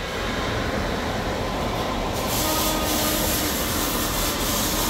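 Steady rushing, rumbling noise of a workshop fume extractor fan. About two seconds in it turns brighter and hissier, and a faint steady hum joins it.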